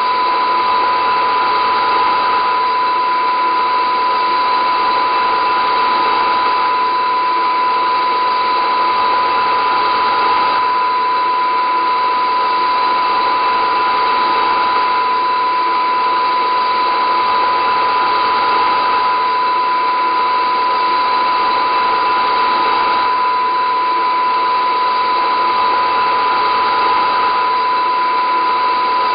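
Steady, unchanging whirring drone with a constant high tone running through it.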